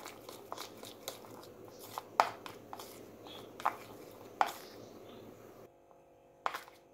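Metal spoon stirring a thick cornflour-and-ghee paste in a plastic bowl: scattered soft clicks and scrapes of the spoon against the bowl, with a brief pause near the end.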